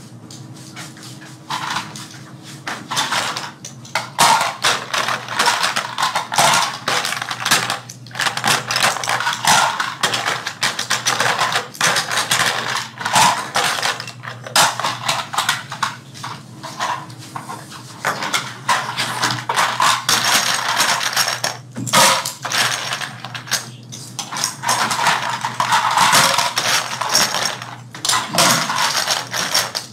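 Small hard parts clattering and clicking continuously as toy airplanes are assembled by hand.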